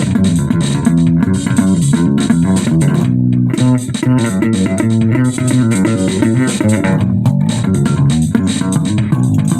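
Bass guitar playing a busy line of plucked notes over a drum kit's beat.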